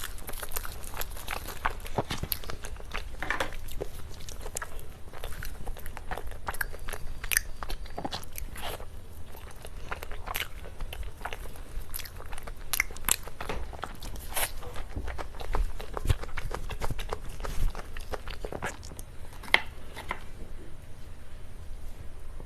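Close-miked eating of cake: bites and chewing with many small, irregular crunchy clicks.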